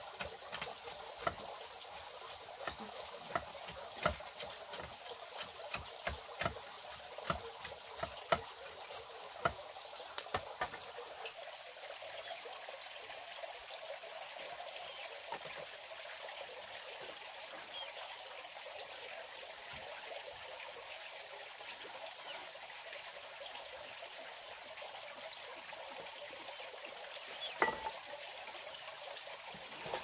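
Sharp knocks of a blade chopping into a wooden block, about one a second for the first ten seconds, then stopping, with one more knock near the end. A steady trickle of running water goes on underneath throughout.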